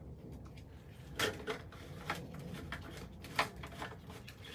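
A few light knocks and clatters from plastic bottles being handled on a bench, over a low steady hum.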